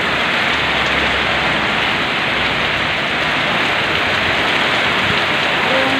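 Heavy rain falling steadily, a dense even hiss, with rainwater pouring off the edge of the roof overhead.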